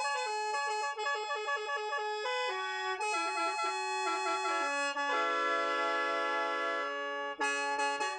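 Lao khaen, the bamboo free-reed mouth organ, played solo: a quick melody of short notes over one steady drone note, with a long held chord about five seconds in, then quick notes again near the end.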